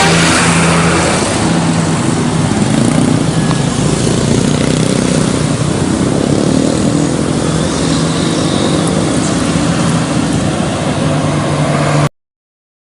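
Road traffic: a vehicle engine running with a steady low hum amid traffic noise, cutting off suddenly near the end.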